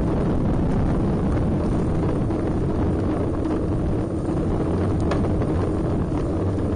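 Steady wind rumbling over the microphone of a camera mounted on a moving road bike.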